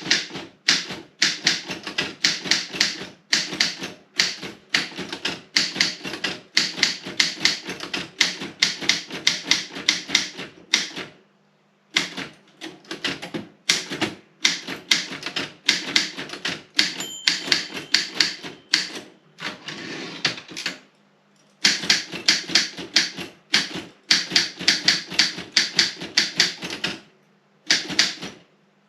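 Robotron 20 typewriter being typed on: fast runs of sharp key and typebar strikes, broken by short pauses about eleven, twenty-one and twenty-seven seconds in.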